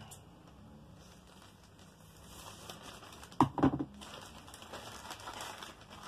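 Plastic courier mailer bag crinkling and rustling as it is handled and opened, with two sharp knocks close together about three and a half seconds in.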